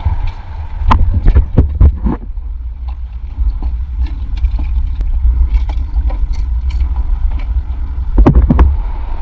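Water splashing and sloshing around the camera at the waterline over a steady low rumble, with a cluster of sharp splashes about a second in and another near the end.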